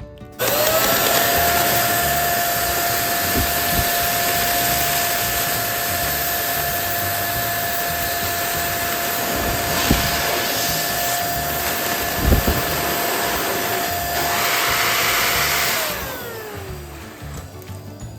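Electric balloon inflator running, inflating a balloon: a steady whine over a rush of air that switches on about half a second in and winds down with a falling whine near the end.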